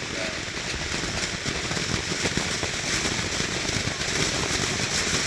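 Consumer fireworks crackling: a dense, unbroken stream of rapid small pops over a steady hiss.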